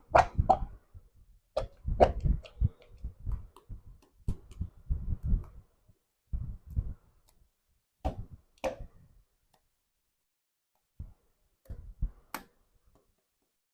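Small toys being handled: irregular taps, clicks and soft thumps, thick at first, then thinning to a few isolated clicks after a quiet stretch.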